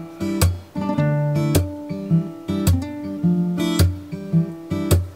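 Background music on acoustic guitar, strummed and plucked, with a strong strum about once a second and plucked notes between.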